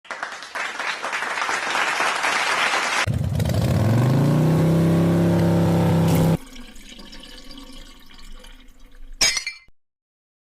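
A run of foley sound effects: a hissing rush for about three seconds, then a louder rush with a low hum that stops abruptly. Quieter noise follows, and a single sharp crash with a brief ring comes near the end.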